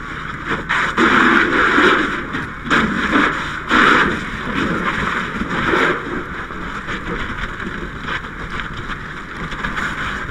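Steady hissing and rushing noise from inside a burning, smoke-filled house, heard on a firefighter's helmet camera. It has several louder surges in the first six seconds, each about a second long or less.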